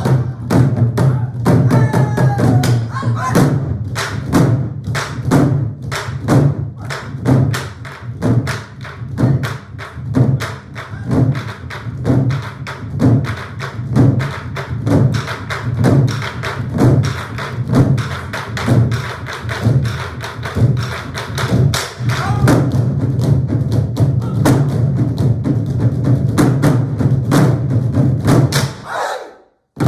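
Ensemble of Korean buk barrel drums beating together in a driving rhythm, the strokes growing denser toward the end and stopping all at once on a final beat about a second before the end.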